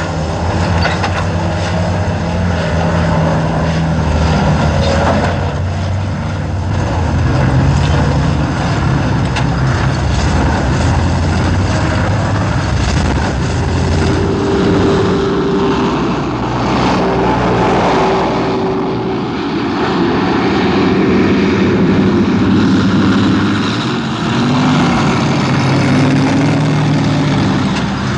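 Engines of a convoy of army trucks and a jeep running steadily as they drive along a gravel track, with a whining tone that comes in about halfway and wavers in pitch.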